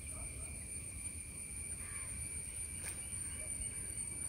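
Insects droning steadily at a high pitch over a low rumble, with faint distant voices.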